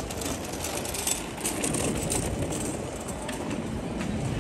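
City street ambience: steady traffic noise with the voices of passers-by.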